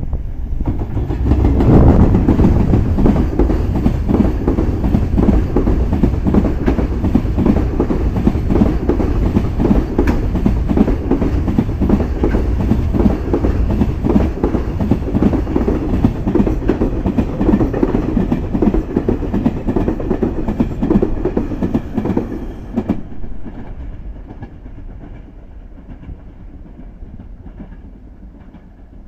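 Train passing close by, its wheels clattering rapidly over the rail joints. About 23 s in the sound drops away abruptly, leaving a fainter rumble that fades.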